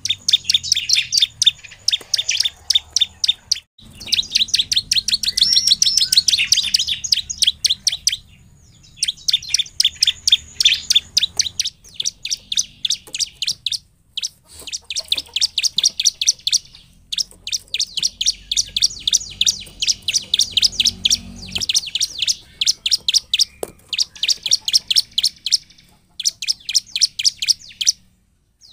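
Bar-winged prinia (ciblek) singing in full voice: long runs of rapid, sharp repeated chirping notes, broken every few seconds by brief pauses.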